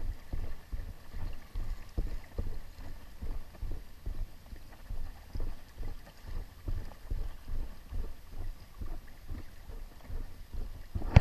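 Small waves lapping and splashing against rocks at the water's edge, in irregular soft pulses, with wind buffeting the microphone.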